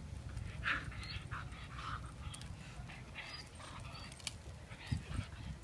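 Bull terrier gnawing and tugging at an exposed tree root, with a string of short breathy noises from the dog and a few sharp clicks.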